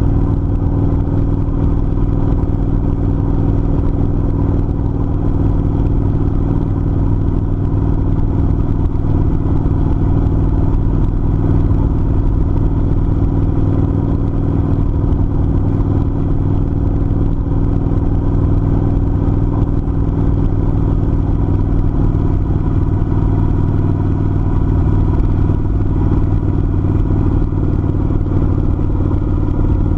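Kawasaki Vulcan 900's V-twin engine running steadily at a constant cruising speed.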